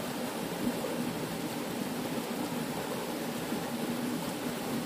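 Forest stream running, a steady rushing of water.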